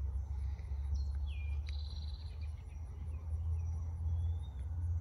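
Low, uneven wind rumble on the microphone, with a few short bird chirps about a second in and one rising chirp near the end.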